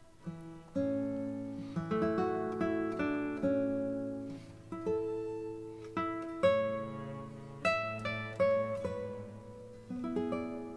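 Background music: a plucked acoustic guitar playing a melody of single notes that ring and fade.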